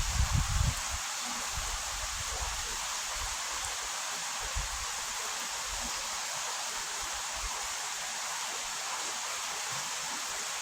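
Steady rush of flowing creek water, an even hiss with no change in pitch. A low rumble on the microphone during the first second.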